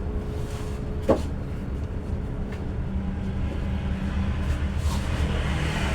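Isuzu MU-X diesel engine running steadily with a low, even hum, with a single sharp click about a second in.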